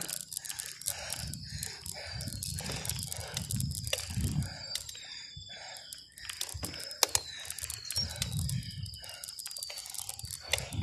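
Crackling, rustling handling noise and wind buffeting on a handheld phone microphone while riding a bicycle, with many sharp clicks and a thin, steady high tone underneath.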